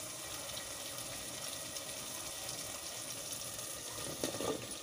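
Onion-tomato masala frying in oil in a steel pan, a steady sizzle, fried to the stage where the oil has separated. About four seconds in, cut potato pieces tip into the pan with a few soft knocks and rustles.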